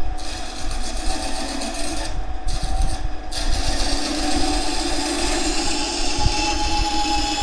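Benchtop band saw running with a steady hum, its blade cutting an angled curve through plywood with a hissing rasp. The cutting noise drops out briefly twice, about two and three seconds in, then carries on steadily.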